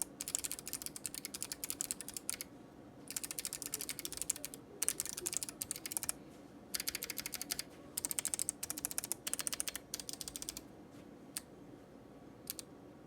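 Typing on a POK3R LE mechanical keyboard fitted with clicky Kailh Box Navy switches: fast runs of sharp keystroke clicks in bursts with short pauses, thinning to a few single key presses near the end.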